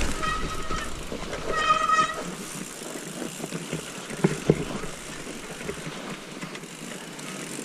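Mountain bike riding down a snow-covered trail: steady tyre and wind noise with a couple of sharp knocks from bumps about four seconds in. Two short, steady high-pitched tones sound in the first two seconds.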